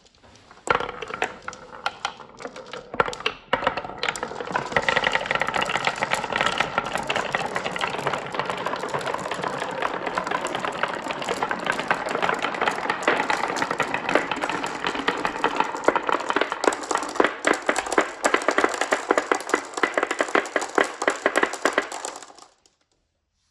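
Many marbles rolling and clattering down a toy marble run track, a dense rattle of rapid clicks that builds up over the first few seconds and cuts off suddenly near the end.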